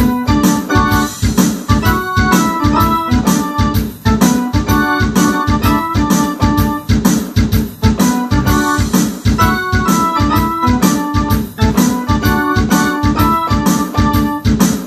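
Ensoniq SD-1 synthesizer played in a rock keyboard part with organ and electric-piano-like chords and melody notes, over a steady beat of about three strokes a second.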